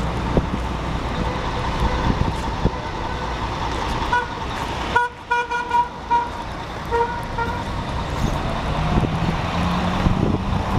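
Street traffic running steadily, with a vehicle horn giving a run of short toots around the middle.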